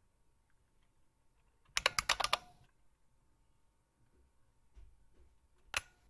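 Emulated IBM Model M buckling-spring key clicks from the bucklespring program: a quick run of key presses and releases about two seconds in, then a single click near the end.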